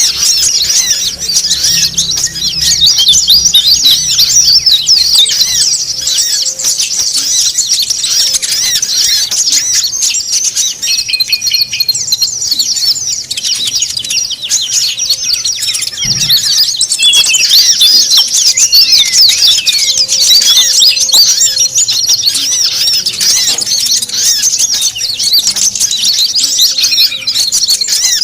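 Many small songbirds chirping and twittering at once in a dense, busy chorus of fast, high chirps and short whistled glides: a mixed bird-lure recording of noisy small birds ('suara burung ribut'), used to draw in wild birds. A brief low thump comes about halfway through.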